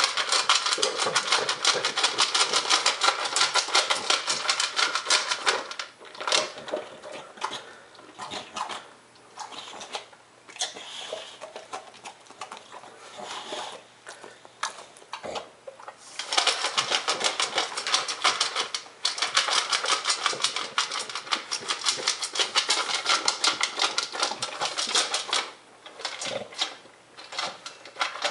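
English Bulldog eating greedily from a metal bowl: a rapid clatter of chewing and food knocking against the bowl. It stops for about ten seconds partway through, then starts again just as fast.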